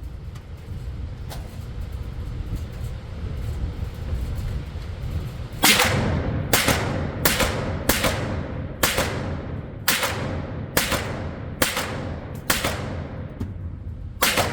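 About ten shots from a Honey Badger rifle in .300 Blackout, a suppressed carbine, fired in semi-auto at roughly one a second, starting about six seconds in, each with a short ringing tail. Before them there is only a low steady rumble.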